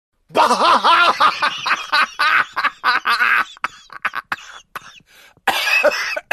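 A person laughing hard in quick repeated bursts, breaking into ragged coughing laughter, with another burst near the end.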